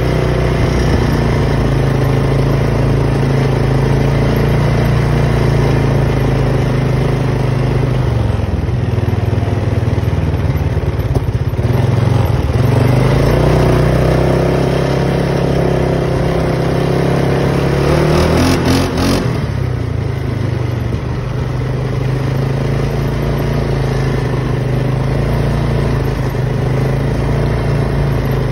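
Polaris Sportsman 570 ATV's single-cylinder engine running as it rides along. It eases off about eight seconds in, picks up again around twelve seconds, and settles to a lower, steady run after about twenty seconds, with a short rattle just before that.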